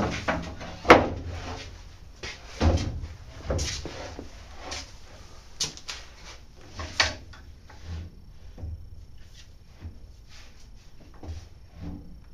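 A string of knocks and clunks from objects being handled and set down on a hard surface, heaviest in the first seven seconds, then lighter taps.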